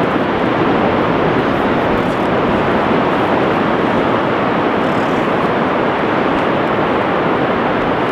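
Steady, even roar of sea surf breaking along a sandy beach.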